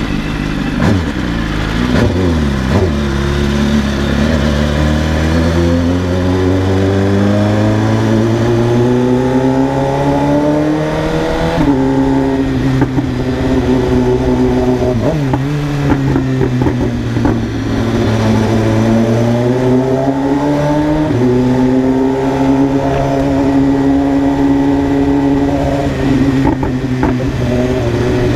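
BMW S1000RR's inline-four engine pulling through the gears. Its pitch climbs steadily for about ten seconds and drops at an upshift, then holds, dips and climbs again, with another shift about three-quarters of the way through.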